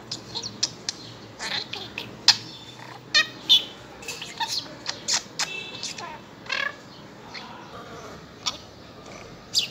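Budgerigar chattering: a rapid, irregular run of short chirps, clicks and squawks with a buzzy warble in the middle.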